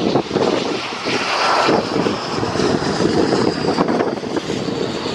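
Jet engines of a Boeing 767-300 freighter taxiing: a steady high whine over a broad rumble, with the whine coming in about a second in.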